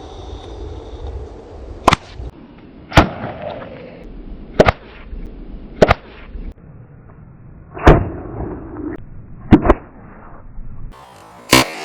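A series of about eight sharp explosive bangs at uneven intervals, one or two seconds apart, two of them close together near the middle: small improvised bottle bombs going off, the container a 500 ml STING energy drink bottle.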